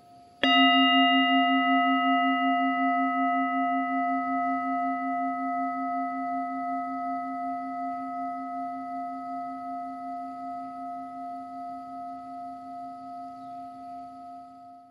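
A meditation bell struck once, about half a second in, ringing with a low wavering tone and several clear higher overtones that fade slowly over the next fourteen seconds.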